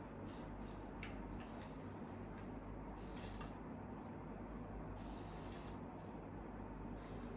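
Faint rustling from hands handling items: about five short, soft brushes over a steady low hum.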